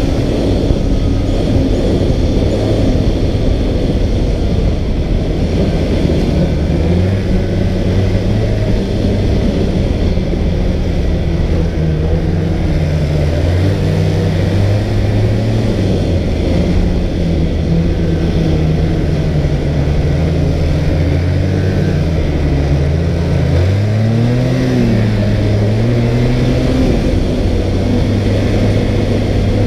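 Snowmobile engine running steadily under way, heard from the handlebars. Its pitch wanders with the throttle and dips about three quarters of the way through before rising again as the throttle is opened.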